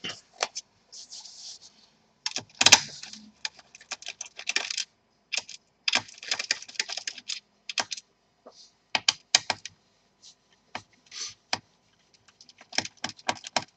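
Small metal laptop screws being handled and set down, clicking and rattling lightly in short irregular bursts.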